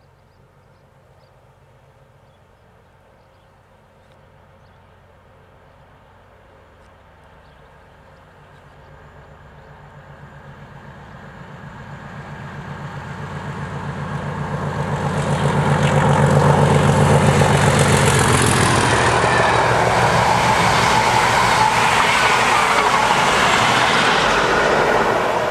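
Class 37 diesel locomotive's English Electric V12 engine working under power as the train approaches at speed. The engine note grows steadily louder over about fifteen seconds. Then comes the loud, steady rush and rumble of the coaches' wheels on the rails as the train passes.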